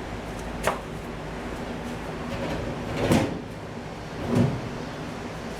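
Sheet-metal knocks and bumps as a pickup truck's front clip is shifted and pushed into position. A sharp click comes about half a second in, then two heavier thuds about three and four and a half seconds in, over a steady low hum.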